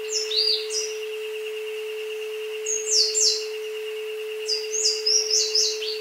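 A generated isochronic-tone track plays under jungle birdsong. It holds a steady pure tone and a higher tone that pulses rapidly. Over it come quick, high, falling bird chirps in three short clusters: at the start, around three seconds in, and from about four and a half to six seconds.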